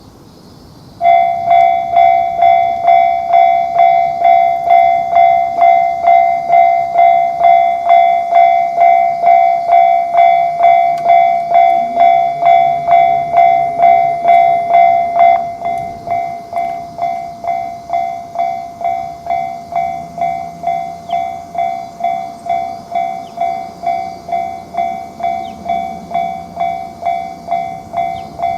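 Japanese railway level-crossing alarm sounding its 'kan-kan' warning: a single-pitched electronic bell striking about twice a second. It starts about a second in and drops to a noticeably quieter level about fifteen seconds in, then keeps pulsing.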